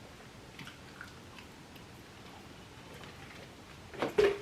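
Faint chewing and small clicks of someone eating chicken nuggets, with a couple of sharper knocks about four seconds in.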